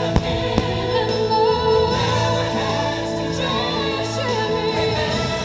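Holiday fireworks-show soundtrack: a choir singing over orchestral music, with two sharp firework bangs in the first second.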